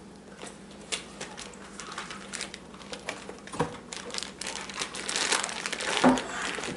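Sneaker packaging wrap crinkling and rustling in quick irregular crackles as a shoe is handled, getting busier and louder near the end.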